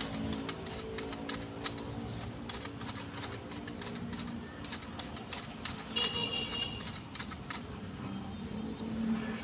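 Manual hedge shears snipping through the twigs and leaves of a Fukien tea shrub: a run of sharp clicks, thick in the first couple of seconds, then thinning out, with a few more snips about six to seven seconds in.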